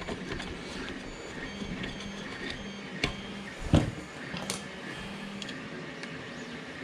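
Hands handling 3D-printer parts during assembly: a few light clicks and one louder dull knock about halfway through, over a steady faint hum.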